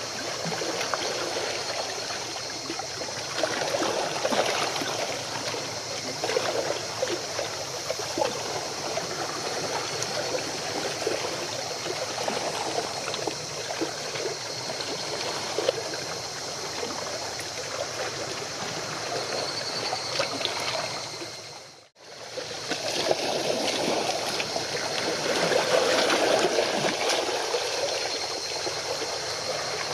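Water splashing and lapping in a steady rush, with small scattered splashes and a faint steady high whine. The sound cuts out for a moment about two-thirds of the way through, then carries on.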